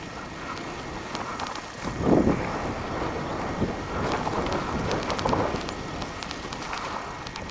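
Wind buffeting the camera microphone, with a rumbling gust about two seconds in and gusts after it, over scattered small clicks and crunches.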